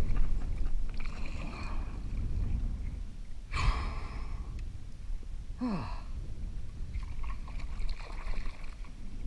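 Water sloshing against a kayak hull with wind rumbling on the microphone. There is a sharp splash a little over a third of the way in, and the angler breathes out with a short falling sigh just past halfway.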